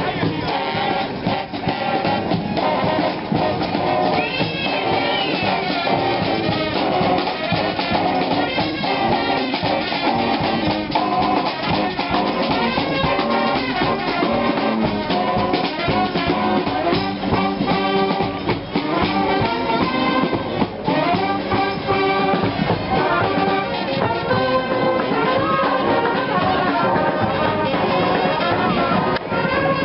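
A street brass band playing a lively tune, with horns carrying the melody over a steady drum beat.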